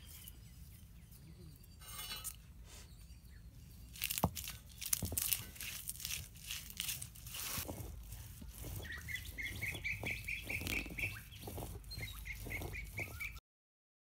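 Stone roller of an ammi (flat grinding stone) knocking and scraping on the slab as pepper, cumin and garlic are ground into a masala paste. Near the end a bird gives two quick runs of chirps. The sound cuts off suddenly just before the end.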